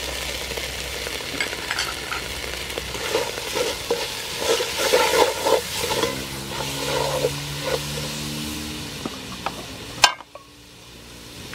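Spice paste sizzling as it fries in oil in a large aluminium pot, with a wooden spatula stirring and scraping through it. A steady low hum joins in for a few seconds in the middle. A sharp click comes about ten seconds in, and the sizzling drops away after it.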